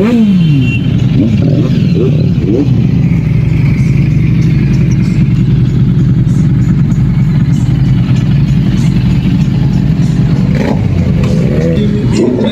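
Harley-Davidson cruiser's V-twin idling steadily close by. Other motorcycles rev with rising and falling pitch in the first couple of seconds and again near the end.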